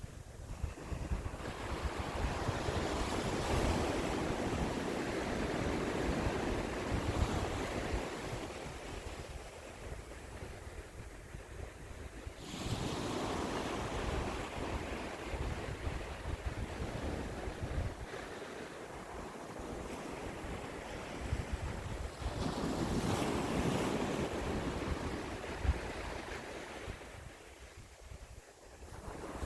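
Ocean waves breaking on the shore: three surges about ten seconds apart, each swelling up and then fading away. A low rumble of wind on the microphone runs underneath.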